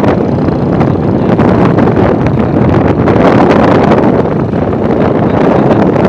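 Loud, steady wind buffeting the microphone while travelling, with a vehicle's engine running underneath.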